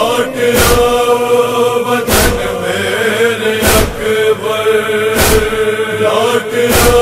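Male chorus of a Shia noha lament holding a chanted drone between sung verses, over heavy matam chest-beats about every one and a half seconds.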